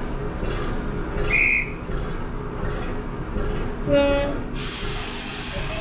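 Heritage train standing ready to depart, with a steady low rumble. A short shrill whistle sounds about a second and a half in, then a short blast of the locomotive's whistle about four seconds in, followed by a rush of hiss.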